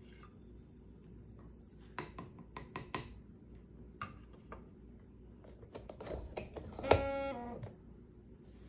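Light clicks and taps of hands working inside an electronic powder scale's draft shield. About seven seconds in, a sharp click is followed by a short buzzing tone lasting under a second.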